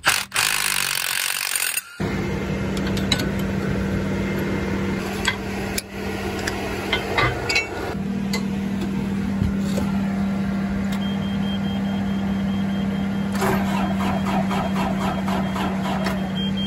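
A cordless power tool whirs briefly on a bolt, then a steady machine hum with scattered clicks and knocks. A high steady warning beep starts about eleven seconds in.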